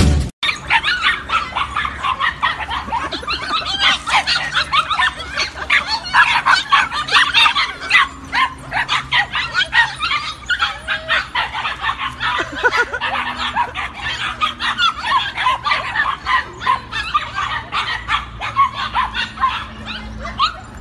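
A group of puppies yipping and barking excitedly, many short high-pitched yips overlapping almost without a break.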